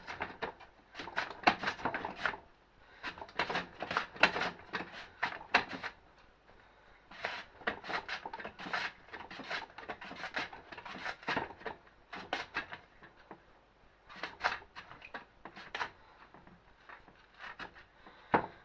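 Raw potato being pushed back and forth across the blade of a plastic V-blade mandoline slicer: quick runs of scraping cutting strokes, with short pauses between runs.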